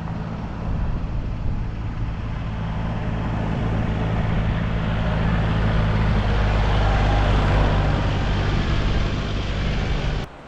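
An engine running steadily with a low hum under a broad rushing noise. The noise swells toward the middle and cuts off suddenly near the end.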